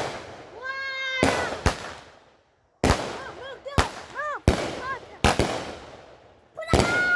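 A run of firework bangs, about eight sharp reports at uneven intervals, with short high-pitched cries rising and falling between them.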